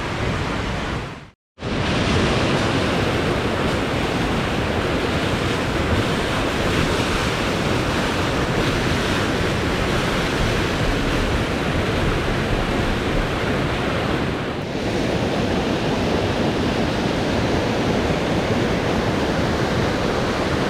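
Waterfall running at heavy snowmelt flow: a steady, loud rush of falling water. The sound cuts out completely for a moment about a second and a half in.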